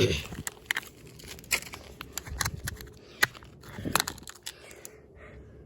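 Small plastic flip phone being handled: a string of short sharp plastic clicks with rustling as its battery and back cover are fitted back in, quieter near the end.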